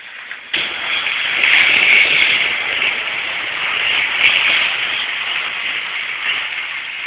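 Model train running on outdoor track close to the microphone: a steady whirring rush of motor and wheels on rails that starts abruptly about half a second in, with a few sharp clicks about two seconds and four seconds in.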